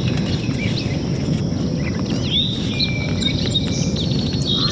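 Birds chirping in short, scattered calls over a steady low rush that sounds like wind on the microphone.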